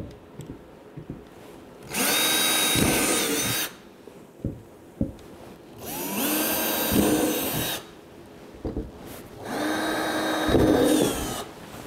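Cordless drill with a 1/8-inch bit drilling pilot holes through plastic Hyfax runners into a plastic sled: three short runs, each whining up to speed and winding down at the end, with light knocks between them as the bit is moved to the next hole.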